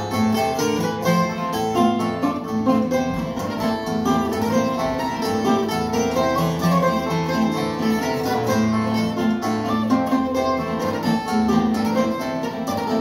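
Portuguese guitar and classical guitar playing an instrumental fado interlude: the Portuguese guitar picks the melody over the classical guitar's accompaniment.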